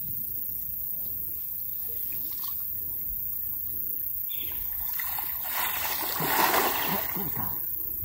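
River water splashing as a wading man throws a cast net: quiet at first, then a burst of splashing from a little past four seconds in, loudest at about six and a half seconds, then dying down.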